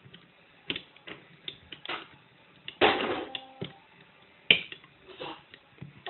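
Small metallic clicks and scrapes of a lock pick and tension tool working inside a mortice lock, scattered and irregular, with a louder, longer sound about halfway through and a sharp click about a second later.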